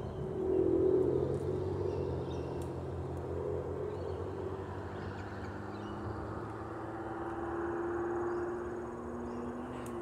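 Distant motor traffic: a low engine drone whose steady tones slowly shift in pitch, loudest about a second in. Faint high bird chirps sound over it.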